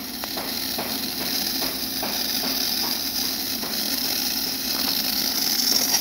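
Gaggia Babila super-automatic espresso machine running as it heats up for steaming: a steady hum with a hiss, the hiss growing louder near the end as steam starts to come out of the steam wand.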